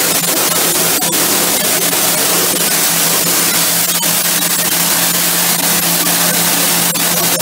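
Pressure washer spraying a jet onto shower floor tiles and grout: a loud, steady hiss with a steady low hum beneath it.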